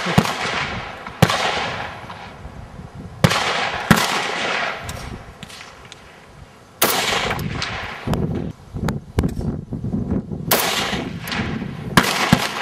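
Semi-automatic Dragunov-pattern rifles in 7.62x54R firing several single shots at uneven intervals, each crack followed by a long echoing tail.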